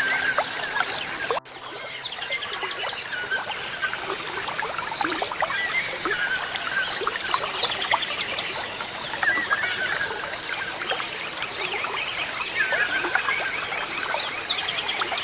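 A chorus of many birds chirping and whistling at once, with short falling whistles and quick chirps overlapping, over a steady high-pitched hum.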